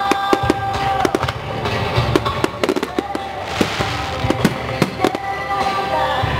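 Aerial firework shells bursting in quick succession, many sharp bangs with crackling between them, over music with long held notes.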